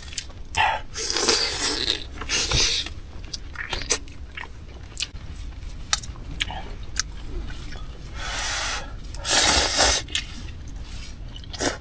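A person chewing and biting into chicken wings, with irregular eating noises and scattered small clicks.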